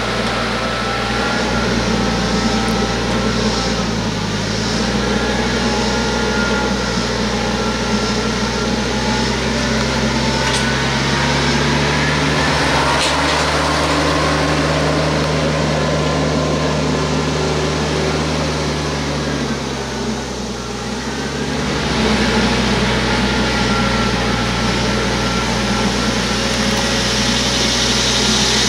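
TYM T474 compact tractor's diesel engine running steadily under load while pulling a land plane through dirt. The engine note shifts in pitch a few times.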